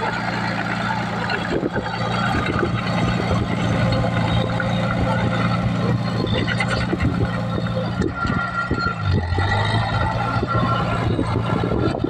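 Komatsu crawler bulldozer's diesel engine running steadily under load while it pushes soil, with frequent knocking and clatter from the machine.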